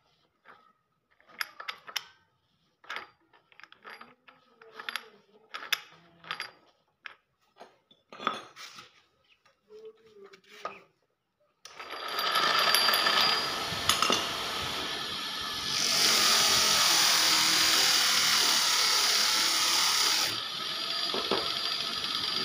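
Metal clinks and knocks as a cloth buffing wheel is fitted onto a Powertec bench grinder's spindle. About twelve seconds in the grinder switches on and runs steadily, polishing a motorcycle brake hub plate on the buff, and its sound grows louder and brighter for a few seconds near the end.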